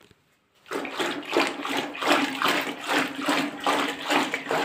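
A churning rod whipping curd into buttermilk in a steel vessel: rhythmic sloshing and splashing that starts about a second in, surging two to three times a second as the rod is twirled back and forth.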